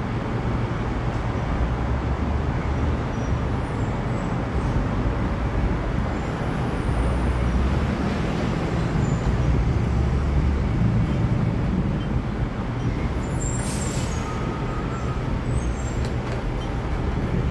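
LIRR M7 electric multiple-unit train running through a station at speed: a steady rumble of wheels on rail, swelling slightly midway, with a few faint high squeals and a short sharp hiss about fourteen seconds in.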